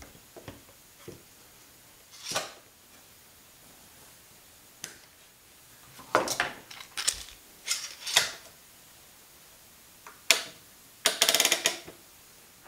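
Woodworking clamps being handled on a wooden bench: scattered metal clicks and clatters as bar and spring clamps are picked up, opened and set on the work, with a quick run of rapid clicks near the end.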